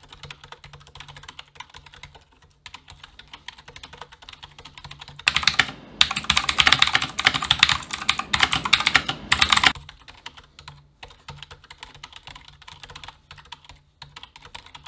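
Typing on a Redragon Mitra K551 mechanical keyboard. It starts with Outemu white switches giving a quieter clatter. About five seconds in, the original Outemu blue clicky switches give a much louder, sharper clicking for about four seconds. Then it goes back to the quieter white switches.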